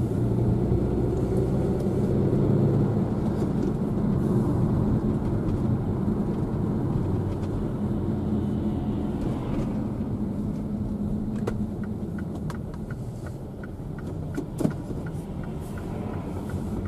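Car running along the road, heard from inside the cabin: a steady low engine and road hum. From about halfway a turn-signal indicator ticks about twice a second, and a single short knock comes a few seconds before the end.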